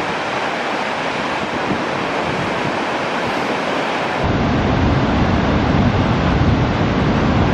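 Heavy ocean surf breaking and washing, a steady rush of noise. About four seconds in the sound changes suddenly to a deeper, louder rumble of breaking waves.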